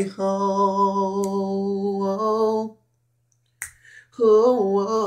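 A man singing a cappella, holding one long steady note for about two and a half seconds, then a short pause broken by a brief sharp sound, and coming back in with a falling vocal run.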